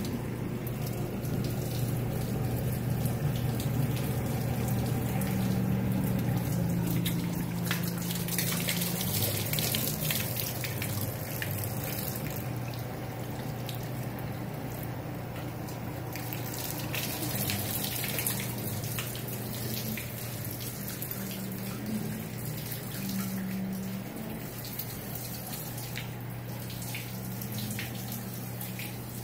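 Water overflowing from under the lid of a basement sewage ejector tank, running down its sides and splashing into the standing water on the flooded floor, with a steady low hum beneath it. The ejector pit is overflowing and flooding the basement.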